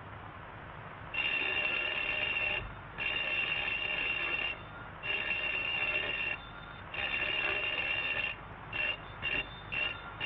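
Cartoon sound-effect telephone bell ringing: four long rings, each about a second and a half with short pauses between, then a quick run of short rings near the end, over faint old-film hiss.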